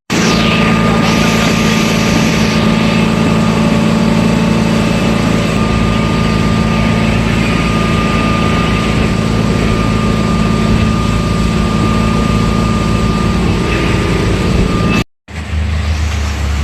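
Boat engine running steadily with a constant low hum. It breaks off abruptly about 15 seconds in and a lower hum takes over.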